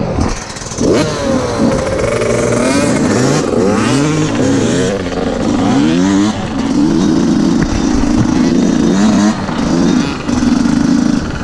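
Motocross dirt-bike engines: several bikes revving, their pitches rising and falling over one another, then one bike under hard acceleration with a steady high engine note, broken twice near the end by gear changes.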